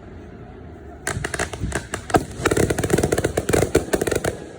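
Fireworks going off in a rapid, dense string of sharp cracks that starts about a second in and lasts about three seconds before stopping near the end.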